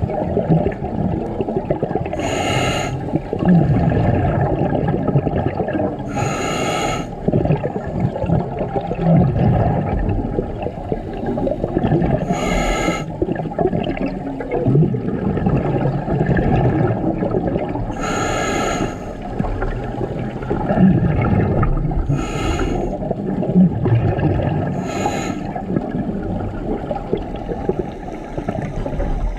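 Scuba diver breathing through a regulator underwater: six short hissing inhales through the demand valve, spaced a few seconds apart, with the gurgle of exhaled bubbles in between.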